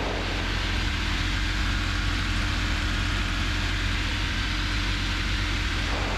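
Steady drone of a Robin DR400's piston engine and propeller heard from inside the cockpit in flight, with airflow noise over the cabin.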